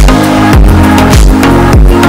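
Loud electronic background music with a steady beat and deep bass hits that slide down in pitch about twice a second, over sustained synth notes.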